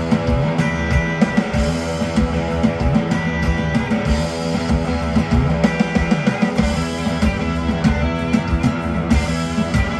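Instrumental rock music: guitar over a moving bass line and a steady drum beat, with no vocals.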